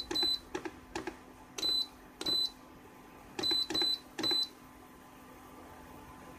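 Induction cooktop's control panel beeping as its buttons are pressed to switch it on and set the power to 2 kW. There are about seven short, high beeps, each with a tap, over the first four and a half seconds, and then they stop.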